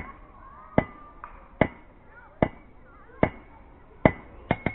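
Blacksmith's hand hammer striking hot iron on an anvil while forging a nail, a steady rhythm of about one blow every 0.8 s that quickens to three close blows near the end. Each blow leaves a short ring from the anvil.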